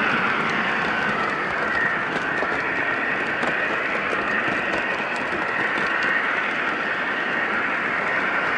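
O-scale three-rail model train running along the track: a steady whirr of motor, gears and wheels close by, with a whine that drifts slowly up and down in pitch.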